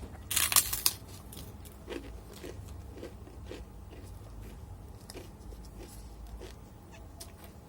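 A crunchy bite into crispy fried chicken about half a second in, followed by close-up chewing about twice a second.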